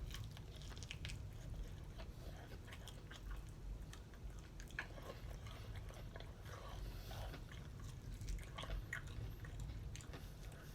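Faint chewing and biting on chicken wings, with small irregular clicks and crunches, over a low steady room hum.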